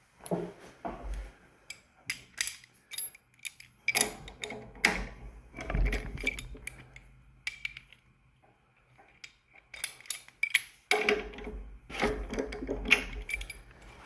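Irregular metal clicks and clinks of hand tools and pump fittings being handled and tightened, with a quieter spell around the middle and a denser clatter near the end.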